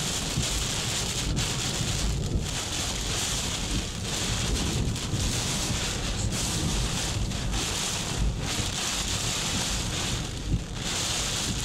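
Typhoon gusts driving heavy rain against a car, heard from inside the car: a steady hiss of rain on the windscreen and body over a low rumble of very strong gusts.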